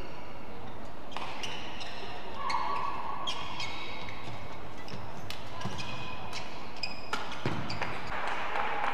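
Badminton rally: sharp racket strikes on the shuttlecock and rubber-soled shoes squeaking on the court mat, in a large hall. Crowd noise rises near the end as the rally finishes.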